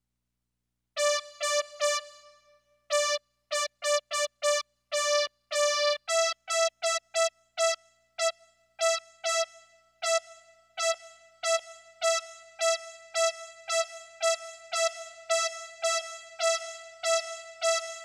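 Roland SC-55 sound module playing one keyboard-like note over and over from a DIY Arduino MIDI controller. The repeats come in a few strikes, a quick run, then about twice a second on a slightly higher note about six seconds in, with the notes ringing on longer as the reverb level is turned up with the rotary encoder.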